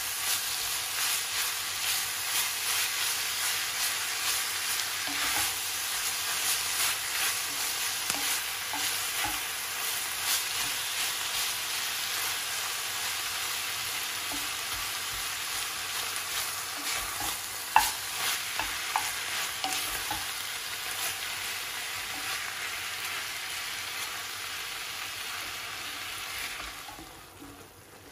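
Ground beef sizzling in a hot pan as it is stirred into the onions with a wooden spoon, with scattered clicks and scrapes of the spoon against the pan, a few sharper ones just past halfway. The sizzle drops off sharply near the end.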